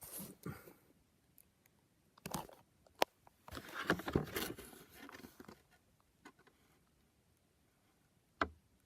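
Handling noises from the model locomotive's packaging: irregular rustles and scrapes, a sharp click about three seconds in, and a longer spell of rustling just after it.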